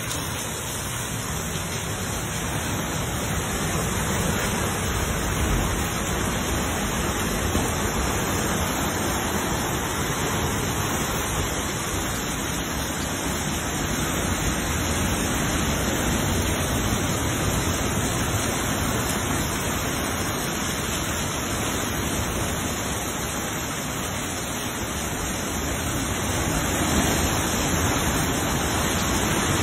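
Heavy storm surf from a hurricane breaking and washing over a rock jetty: a steady rushing roar of water that grows a little louder near the end.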